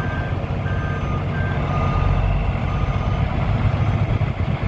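Heavy-truck diesel engine running with a steady low rumble, while a backup alarm beeps repeatedly in short tones at two pitches.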